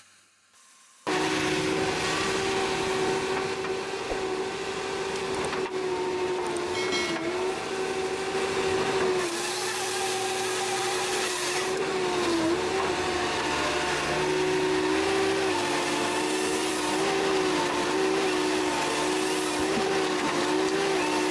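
After about a second of near silence, a machine runs with a steady pitched hum that dips briefly in pitch several times.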